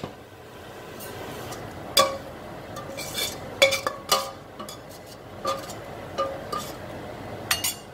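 Metal spoon scraping and knocking against a stainless-steel saucepan while roasted peanuts and spices are scraped out into a bowl: a series of sharp metallic clinks, each with a short ring, over about the last six seconds.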